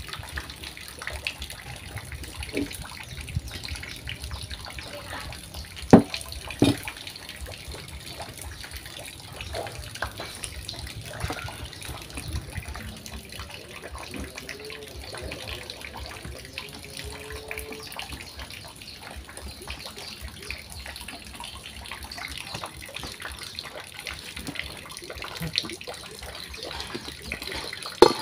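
Hands mixing and kneading flour dough in a stainless steel bowl: steady soft squishing and rubbing with small scrapes, and two sharp knocks about six seconds in.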